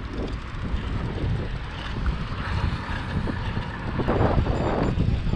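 Wind rushing over the microphone of a camera on a moving road bicycle, heard as a steady low rumble that swells about four seconds in.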